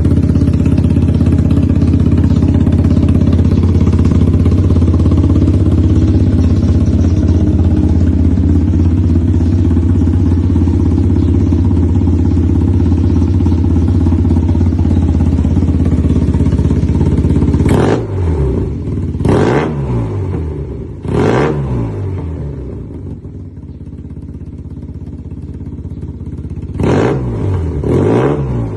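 Yamaha TMAX maxi-scooter's parallel-twin engine breathing through an SC-Project titanium full exhaust system, idling steadily, then blipped five times from about two-thirds in, the revs rising and dropping back to idle each time.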